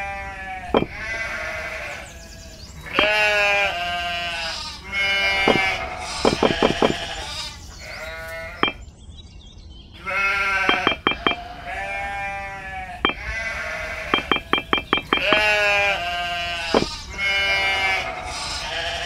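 Farm animals bleating in a string of calls, some with a rapid fluttering pulse; the same sequence of calls repeats after a brief gap about nine seconds in.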